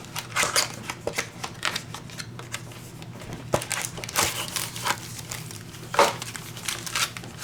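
Phone-case packaging being handled and opened: irregular crinkling rustles and small clicks, with a sharper click about three and a half seconds in.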